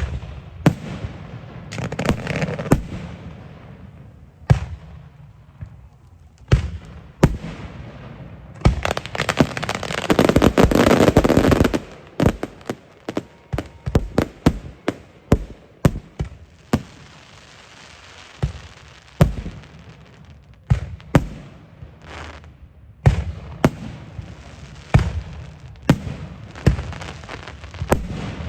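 Fireworks going off: a string of sharp bangs at irregular intervals, with a few seconds of dense, continuous crackling and hissing about a third of the way in.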